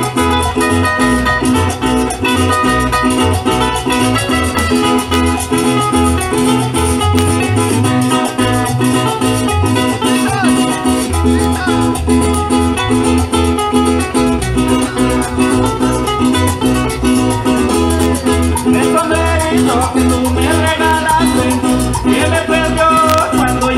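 Live band playing merengue campesino through a PA: strummed acoustic guitars over a steady, driving low beat.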